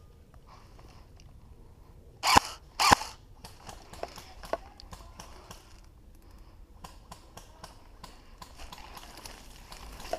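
Airsoft gun firing two sharp shots about half a second apart, followed by faint scattered clicks and crackling.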